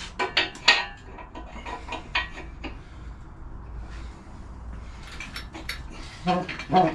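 Metal clanking and clinking as the engine block is worked onto the engine stand's mount to line up the locking pin: a quick run of sharp metallic clinks in the first second, scattered lighter knocks, then two louder knocks near the end.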